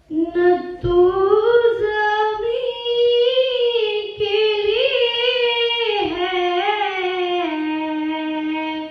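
A single high voice singing a naat unaccompanied, a slow melodic line with ornamented turns. It ends on a long held note of about a second and a half.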